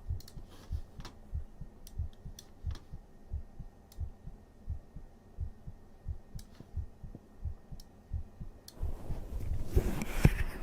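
A man's heartbeat heard close up: a steady rhythm of low, soft thumps, with a few faint clicks. Near the end a louder rustling noise swells up over it.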